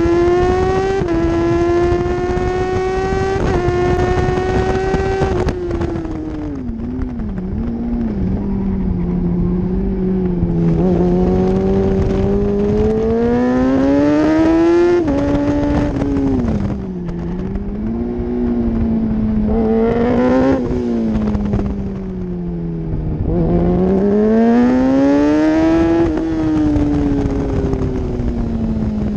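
Kawasaki ZX-6R 636 inline-four sportbike engine run hard on a track lap: the pitch climbs in quick steps through several upshifts in the first few seconds, drops with wavering downshifts under braking, then rises again out of the corners. A steady rush of wind noise runs under the engine.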